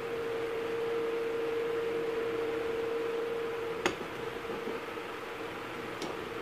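A steady background hum over hiss, broken by one sharp tap about four seconds in and a fainter one near the end, as a flat piece is handled against a steel bench vise.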